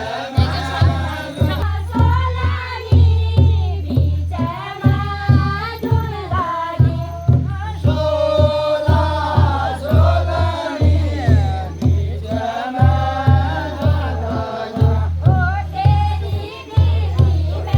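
Pahari chanchari folk song: a group of voices singing together over a steady drum beat of about two strokes a second.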